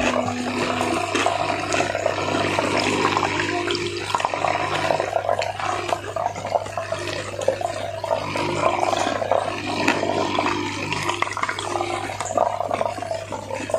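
Close-up, wet chewing and lip-smacking of a person eating smashed fried chicken and rice by hand, as a dense run of small irregular clicks, over a steady low hum.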